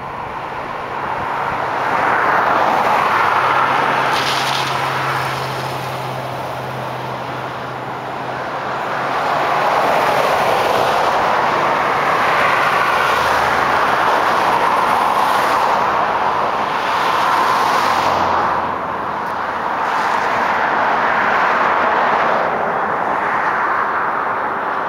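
Road traffic: vehicles passing one after another, their tyre and engine noise swelling and fading about three times.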